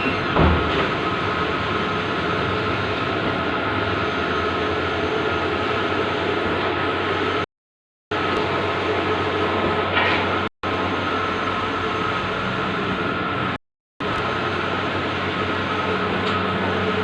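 Bluewin outdoor large-format digital printer running: a steady mechanical whir with a constant high-pitched hum and a low hum, and a sharp click near the start. The sound cuts out completely for a moment three times.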